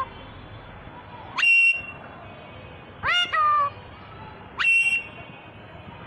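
Alexandrine parakeet giving three short whistled calls, each sweeping sharply up in pitch at its start; the middle call comes in two parts and falls away at the end.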